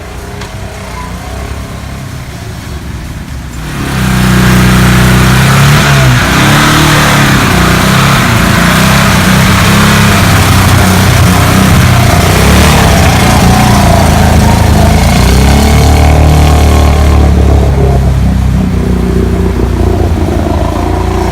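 Lada Niva (VAZ-2121) engine running quietly, then suddenly loud about four seconds in as it is driven hard. Its pitch rises and falls with the revs under a heavy rushing noise.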